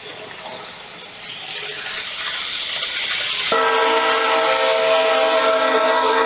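Recorded train sound played back through a portable stereo speaker by an ISD1820 sound-recorder module, triggered by a reed switch as the model train passes. A rushing noise grows louder, then about three and a half seconds in a multi-tone train horn cuts in suddenly and holds.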